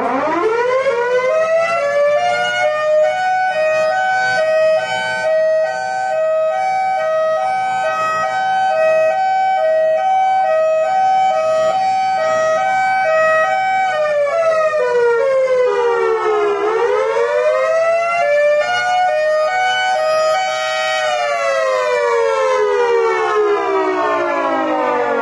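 Mini 3D-printed Thunderbolt 1003 dual-tone siren sounding, crazy loud. It winds up quickly, holds a steady two-note wail that pulses as the rotating horn sweeps round, dips in pitch about two-thirds of the way through and climbs back, then winds down slowly toward the end.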